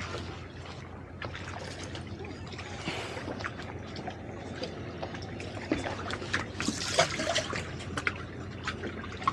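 Water trickling and lapping against the hulls of two side-tied boats, over a steady low engine hum. Scattered light knocks and clicks run through it, a little louder about seven seconds in.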